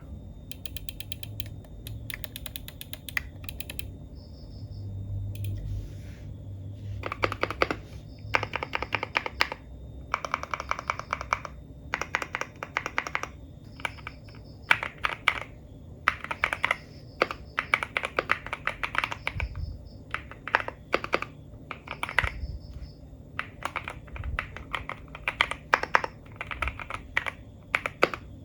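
Typing on a CIDOO V75 75% mechanical keyboard with gasket-mounted linear switches and poron foam damping: quick runs of muted, soft keystrokes in bursts with short pauses. The typing is light at first and becomes steady about a quarter of the way in.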